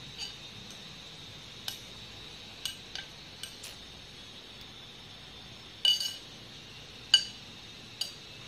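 A spoon clinking against a glass mixing bowl as chopped vegetables are stirred: about nine irregular, ringing clinks, the two loudest about two-thirds of the way through.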